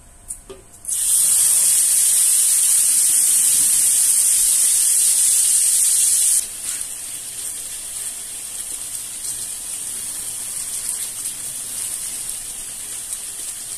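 Blended chilli paste hitting hot oil in a wok: about a second in, a sudden loud sizzling hiss as it is poured in and steam bursts up. After about five seconds it settles to a quieter steady sizzle as the paste fries.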